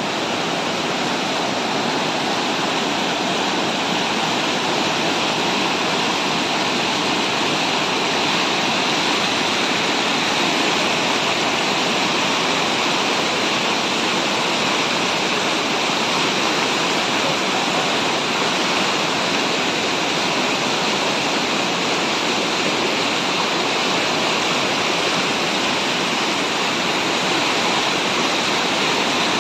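A flash-flooded mountain stream of muddy water rushing over boulders: a loud, steady, unbroken rush of water.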